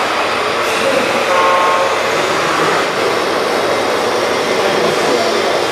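Radio-controlled model dump trucks (Komatsu HD405 replicas) driving, a steady mechanical running noise mixed with the hum of the hall, with a brief faint whine about a second and a half in.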